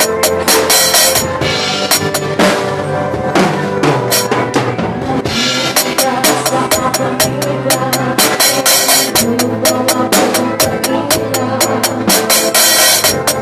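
Live band music led by a drum kit: a steady, fast beat of bass drum and snare, with cymbal crashes several times, over bass and other instruments.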